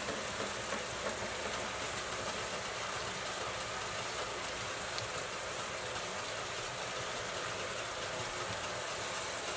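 Chicken pieces frying in oil in a pan, sizzling with a steady, even hiss.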